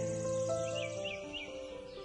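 Background music of slow held notes, with short bird chirps over it in the first second.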